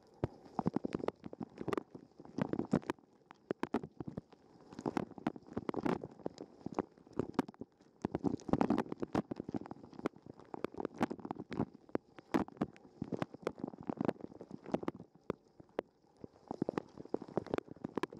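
Dishwasher wash cycle heard from a waterproof camera inside the machine: water jets splashing and pattering against the camera and dishes in irregular surges every one to two seconds.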